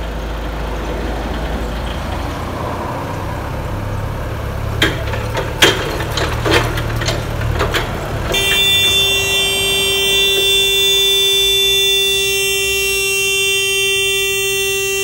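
Yale forklift engine running, with a few sharp knocks. About eight seconds in, the emergency-stop button shuts the engine off and the forklift's alert horn sounds one long steady tone, held to the end.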